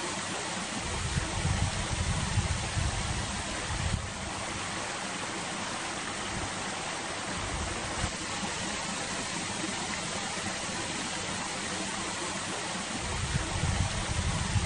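Steady outdoor rushing noise, with wind buffeting the microphone in low rumbling gusts from about a second in and again near the end.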